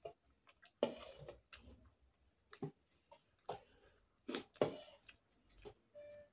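Metal spoon clinking and scraping inside a steel-lined insulated food jar while food is scooped out: a handful of sharp clinks and scrapes with short gaps between them, then a brief hum-like tone near the end.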